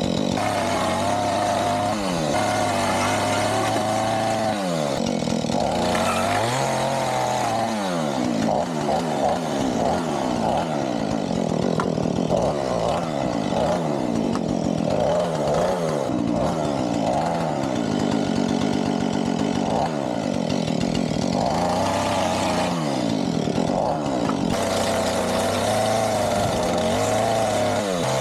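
Chainsaw running hard and cutting wood, its pitch wavering and dipping again and again as it works through the cuts.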